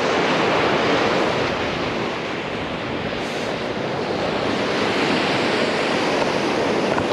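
Steady sound of surf breaking and washing up the sand, with wind blowing across the microphone.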